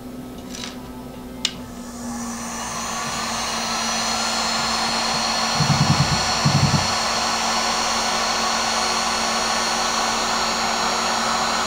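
Heat gun switched on and blowing hot air steadily onto heat-shrink tubing to shrink it over a small radio receiver. A sharp click comes about a second and a half in. The airflow then builds over a couple of seconds and holds steady, with two short low bumps around six seconds in.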